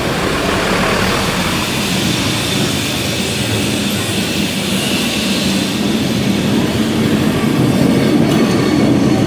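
Vintage yellow Lisbon tram running along street rails over cobbles as it approaches and passes close by, its rumble growing louder near the end.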